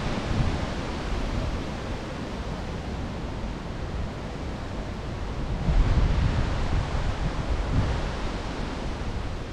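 Wind buffeting a GoPro's microphone: a steady rush with low rumbling gusts, swelling a little about six seconds in.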